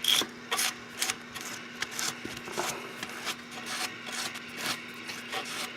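Irregular rubbing, scraping and small clicks of handling noise, over a faint steady hum.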